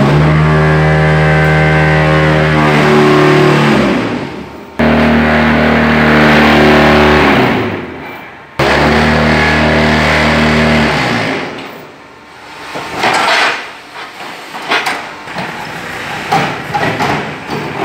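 Concrete block machine running: a loud, steady motor hum, heard as the machine's compaction vibration, comes in three runs of a few seconds, each sagging in pitch as it winds down. After that come irregular metallic clanks and knocks as the machine cycles.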